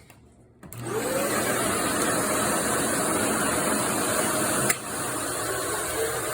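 Vacuum cleaner switched on, its motor spinning up to a steady running whine to drive a suction-powered upholstery tool. There is one sharp click near the end, after which the running sound settles slightly quieter.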